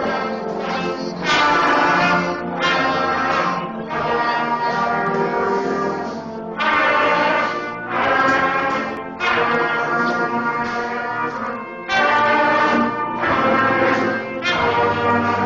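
School brass band playing, led by trombones and trumpets, in loud sustained chords with a fresh attack every second or so.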